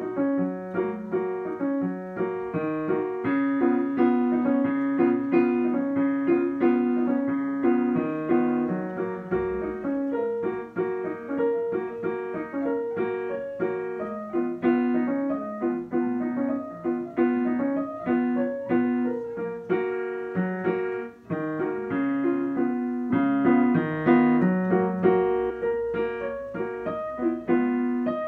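Digital piano being played with both hands, a continuous run of notes with a short break about three-quarters of the way through.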